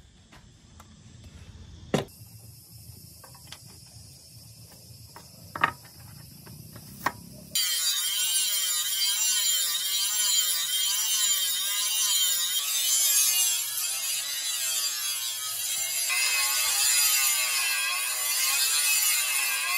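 Angle grinder with a flap disc grinding the steel blade of a knife. It starts suddenly about seven seconds in, after a quieter stretch with a few sharp knocks, and then runs loud and hissing, wavering as the disc is worked along the blade.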